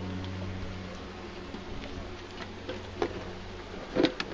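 Low hum of honeybees from an open hive, strongest in the first second, with a few light clicks and knocks as the wooden frames are handled, the loudest about four seconds in.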